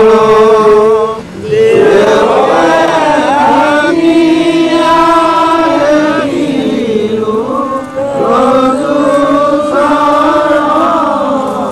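A group of voices chanting a devotional hymn together, in long sung phrases with short breaks between them.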